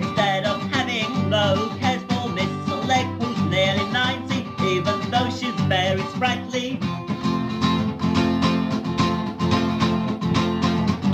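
Song recorded at home onto cassette: a voice singing over guitar accompaniment.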